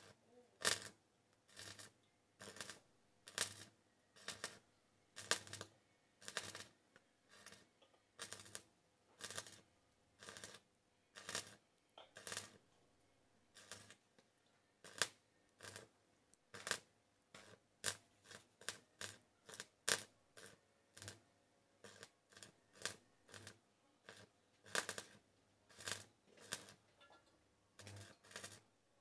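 Stick (arc) welding on scrap steel: the arc flares in short bursts, about one to two a second, as the electrode is struck against the metal again and again.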